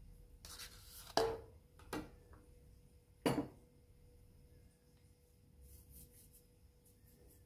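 Three sharp knocks of kitchenware, about one, two and three seconds in, as the emptied plastic colander is knocked and set down, over a faint steady hum. Softer rustling follows later as the diced potato cubes are pushed about in the steel pan.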